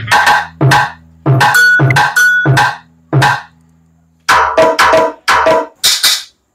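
Sony MHC-V73D party speaker playing its Taiko drum sounds as its top panel is tapped by hand: a string of separate drum hits, deep ones first, then after a short pause about three seconds in, a quicker run of higher, brighter hits.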